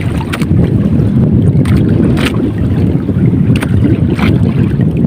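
Wind buffeting the microphone aboard a small fishing boat at sea: a steady, loud low rumble, with several short sharp knocks or splashes through it.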